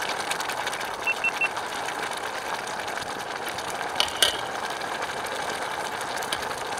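Fish curry simmering in a steel pot over a campfire, heard as a steady hiss. Two sharp clinks of a spatula against the pot come about four seconds in.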